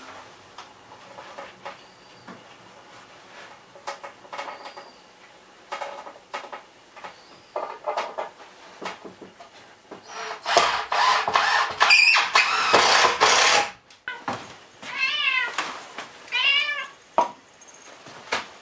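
Small knocks and clicks of hand work on wood, then about three seconds of loud rubbing or rasping on wood that cuts off suddenly. After it a domestic cat meows twice, each meow rising and then falling in pitch.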